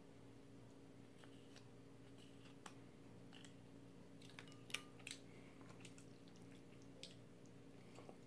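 Faint taps and clicks of metal chopsticks and a spoon against a bowl, with a few small wet squishes as noodles in soup are stirred and lifted. The sharpest click comes about halfway through, over a steady low hum.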